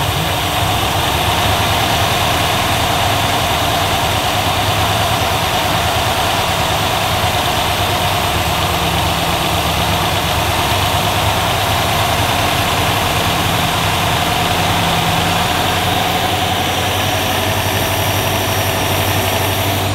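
Rover P6 engine idling steadily while its carburettor mixture is being set with a screwdriver.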